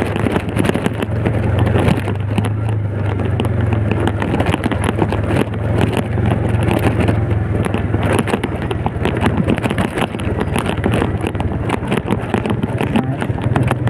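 Old Yamaha Vega motorcycle engine running steadily on a downhill ride over a rough, unpaved mountain road, with frequent knocks and rattles from the bumps and wind on the microphone.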